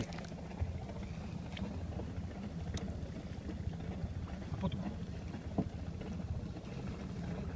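A steady low rumble with a faint hum, and a few small clicks.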